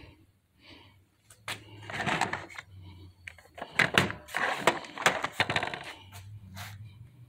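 Plastic toy tractor-trailer trucks being slid and set down on a table, clattering and knocking against each other in two bouts, around two seconds in and again from about four to six seconds in.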